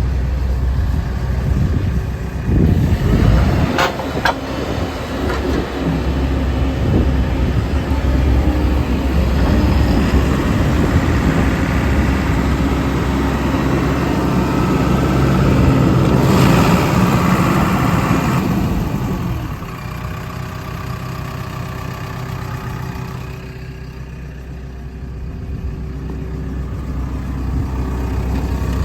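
JCB JS130 tracked excavator's diesel engine running, with a few sharp knocks about three to four seconds in. The engine grows louder for a few seconds past the middle, then drops back to a quieter, steady idle.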